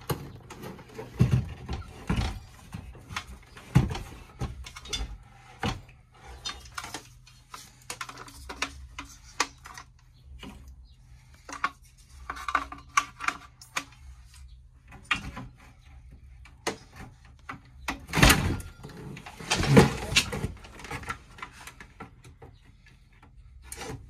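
Clicks, knocks and metallic clatter from a sheet-metal RV converter housing and a replacement power-supply board being handled and fitted by hand, with the loudest clattering around 18 to 20 seconds in.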